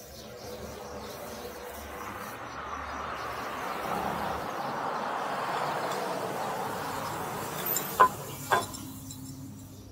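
A vehicle passing on the road, its noise swelling for a few seconds and then fading, followed by two sharp knocks close together near the end.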